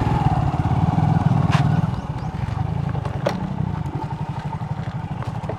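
Motorcycle engine running at low speed, heard from the rider's seat, easing off a little about two seconds in, with a couple of light clicks.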